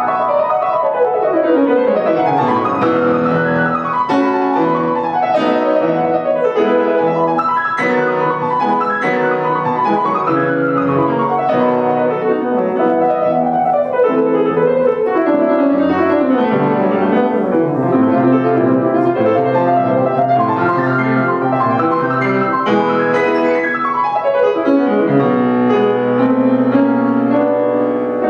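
Bechstein grand piano played solo in a classical piece, with fast scale runs sweeping down and up the keyboard.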